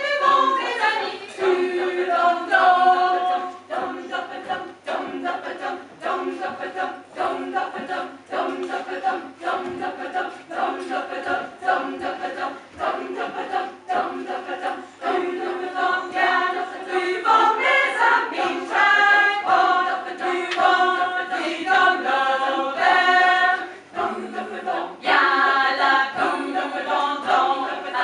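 A women's choir singing a cappella in several-part harmony, with sharp knocks keeping a steady beat under the voices.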